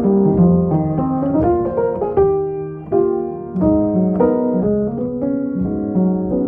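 Keyboard playing a sequence of chords in an instrumental music passage, with a held chord fading about two seconds in before the next chord comes in.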